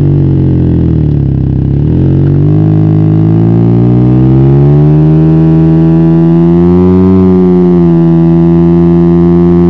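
Can-Am Ryker 900's three-cylinder engine running through a Silber turbo exhaust with the baffle removed, heard from on the moving trike. Loud. The engine note drops for about two seconds as it slows, then climbs steadily as it accelerates, and holds level near the end.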